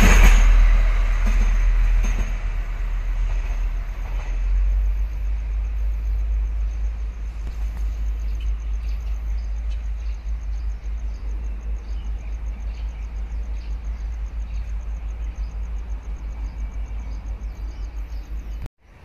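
Taiwan Railway CMB-37 catenary maintenance vehicle passing on the tracks and moving away, its rumble loudest at first and fading over the first few seconds. A steady low rumble remains after it has gone.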